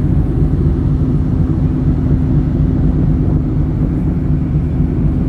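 Ferry's engines running steadily, heard on board as a loud, low, even hum with a constant tone in it.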